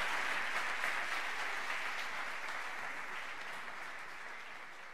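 Audience applause, fading away gradually.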